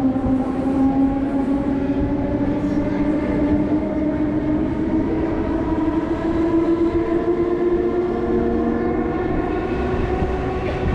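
Heritage passenger train running and gathering speed, heard from inside the carriage: a loud rumble of wheels and running gear under a steady tone that rises slowly in pitch.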